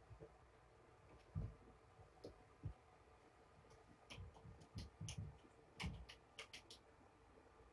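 Faint, scattered clicks and a few soft low knocks, bunched in the second half: handling noise as a towel is spread out and folded.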